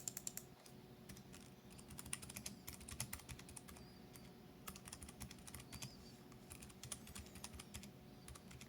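Typing on a Keychron K3 low-profile keyboard with Keychron optical brown switches: faint, soft key clicks in quick irregular runs. These tactile switches make very little noise.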